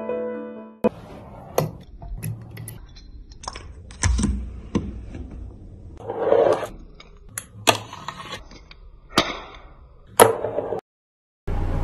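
Miniature finger scooter doing tricks on a hard surface: irregular sharp clicks and knocks as it lands and hits, with its little wheels scraping and rolling in between.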